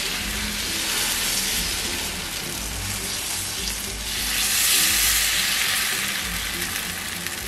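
Thin jowar-flour rava dosa batter sizzling as it is ladled onto a hot, lightly oiled pan; the sizzle swells about four to five seconds in as more batter goes on.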